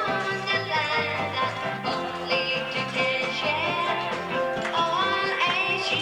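Background music: an upbeat song with singing over guitar and a steady beat.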